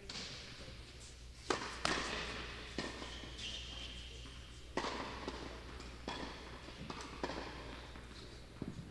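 Tennis balls struck by rackets and bouncing on the court during a rally: a series of sharp pops roughly a second apart.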